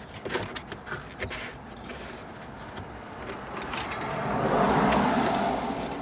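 Scattered light clicks and rustles of wiring being zip-tied along the car's headliner, then a passing car outside that swells up about four seconds in and fades again.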